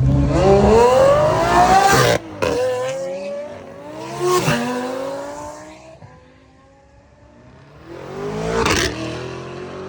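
A car accelerating hard, its engine pitch climbing through the revs with abrupt breaks at the gear changes about two seconds and four and a half seconds in, then fading as it moves away. Another car revs up and passes near the end.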